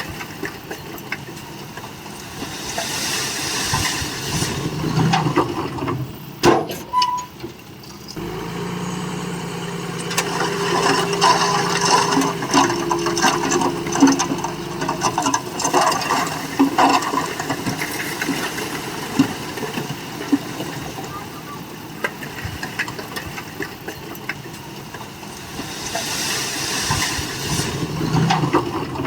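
Heavy earthmoving machinery at work, a bulldozer's diesel engine running under load amid constant metallic clanking and rattling. A steadier engine note comes in about eight seconds in and fades about halfway through.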